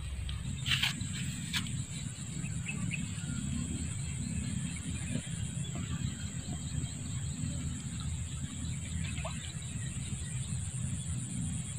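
Swamp insects giving a steady high-pitched drone, with a faster pulsing trill over it that stops briefly about halfway through. There are two sharp clicks about a second in and a few faint short chirps, all over a low rumble.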